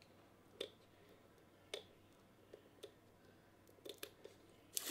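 Faint, scattered clicks of fingers tapping and handling the gloss plastic side panel of a Belkin Thunderbolt Express Dock, about eight in all, the loudest near the end.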